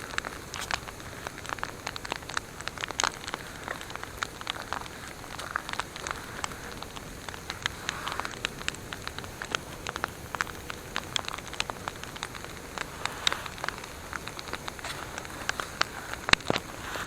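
Wood campfire crackling: irregular sharp snaps and pops over a steady hiss, with a few louder pops near the end.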